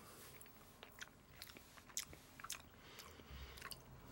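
Faint wet mouth clicks of a person chewing a mouthful of soft sago-and-bean pudding in coconut cream, a handful of scattered short clicks.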